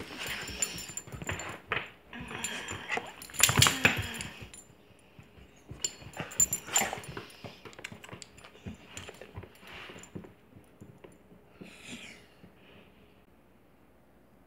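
Excited whippet whimpering and snuffling close to the microphone, among rustling, with the jingle of its metal collar tag. The activity is busiest for the first four seconds or so, then thins to scattered small sounds.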